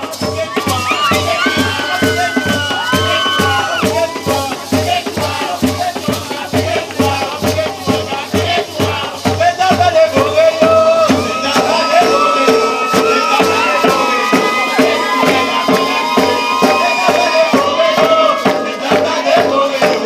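Gwoka drum music: ka hand drums beat a steady quick rhythm under a shaker rattle, while voices sing held, wavering lines over it.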